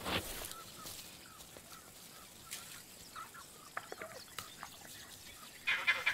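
Wild animal calls: scattered faint chirps, then a louder burst of rapid, harsh calls near the end.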